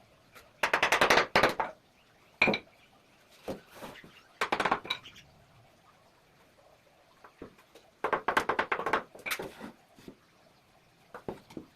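Bursts of rapid, hard clicking and clinking, each about a second long, with single sharp knocks between them.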